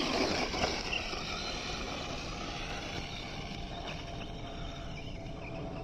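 Electric motor and gearbox of a radio-controlled scale trail rig whining as it drives off, the pitch shifting with the throttle and the sound growing fainter as the truck moves away.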